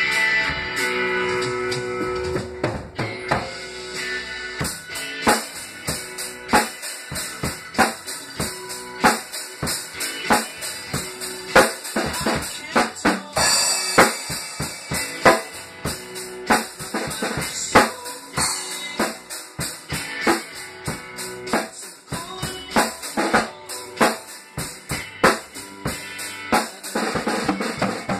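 Acoustic drum kit played in a rock beat, with steady kick drum, snare hits and rimshots. The recorded song's guitar carries the first few seconds, and the drum strikes turn dense and regular from about five seconds in.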